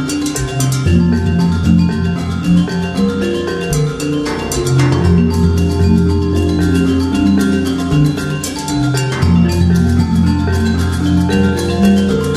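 Background music: a melody of pitched notes over a sustained bass line and a steady beat.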